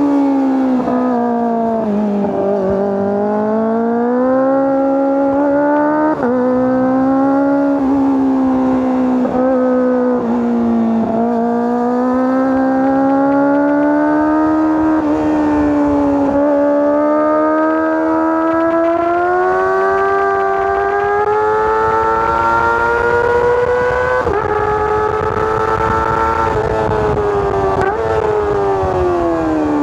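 Kawasaki ZX-25R SE's 250 cc inline-four engine and exhaust under way at high revs. The pitch climbs and sags gradually, with several short sharp dips where the revs briefly drop, and falls away near the end.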